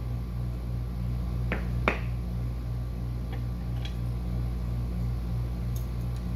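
Two sharp light clicks, about half a second apart, as items are set down and moved inside a glass mouse tank, over a steady, low pulsing hum.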